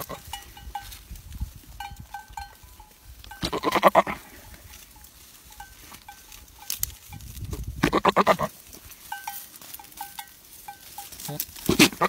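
Buck goat's courtship calls to a doe: three rough, pulsing bleats, each about a second long, coming every few seconds.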